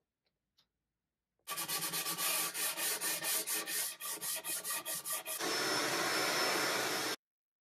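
Hand-sanding the rough edge of a wooden panel with a sanding pad: quick back-and-forth rubbing strokes, about five a second, turning a little over halfway through into a steady continuous rub that stops abruptly.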